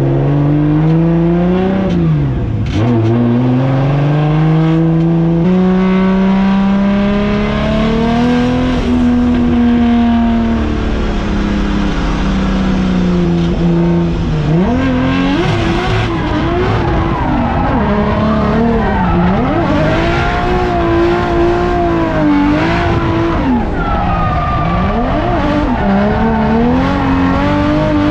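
Drift car engine revving hard. It climbs in pitch through a couple of gear changes, then several times the revs dip sharply and snap straight back up as the car is thrown through the drift.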